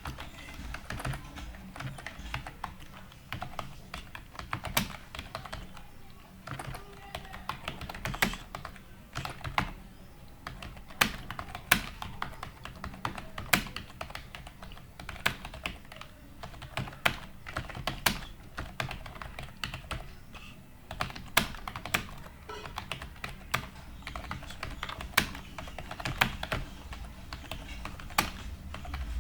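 Typing on a computer keyboard: a continuous rapid run of key clicks, with louder strokes standing out every second or so.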